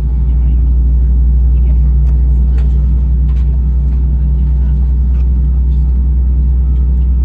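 Loud, steady low rumble inside an Airbus A320 cabin, with a faint steady hum over it and light scattered clicks.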